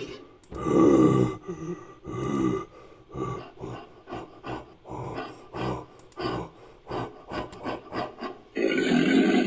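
Designed monster vocal sound effect built from layered animal roars and a human voice. A short roar about a second in is followed by a run of quick rasping grunts at about three a second, and a long, loud roar starts near the end.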